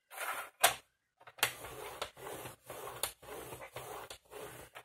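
Paper trimmer's slider run back and forth along its rail over white card to score the fold line, a series of scraping strokes with sharp clicks, about two a second after a first short pass.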